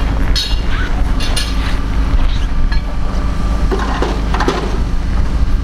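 Metal clinks and knocks from a fold-out aluminium wheelchair lift platform and its handrail being set up at a train door, sharpest about half a second and a second and a half in, with more knocks around four seconds in. A steady low rumble runs underneath.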